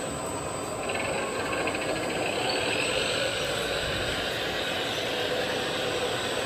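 Steady mechanical running noise with a faint constant hum, the sound of a motor or engine running continuously.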